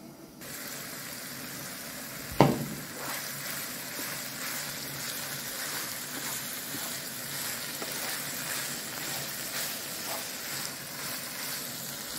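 Ground meat and onion sizzling in a frying pan as a wooden spoon stirs them, a steady hiss with faint scraping clicks. A single loud knock about two seconds in.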